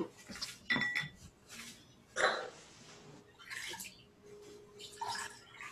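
Scattered rustles of cloth and clothing as a blindfold is tied on and shirt sleeves are rolled up: a few short, separate rustles, the loudest just over two seconds in, with a brief squeak about a second in.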